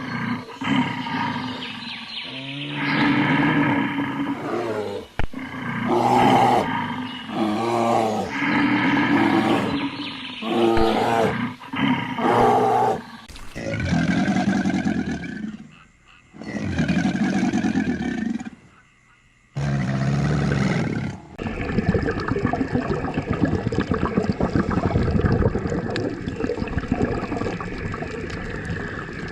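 A series of loud, pitched animal calls, cut together as separate short clips with brief gaps between them. About two-thirds of the way through they give way to a steady rushing noise.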